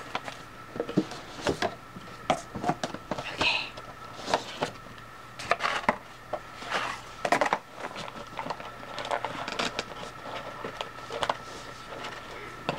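Cardboard doll box being handled and opened: scattered light taps, knocks and short rustles as the lid comes off and the doll is worked loose from its insert.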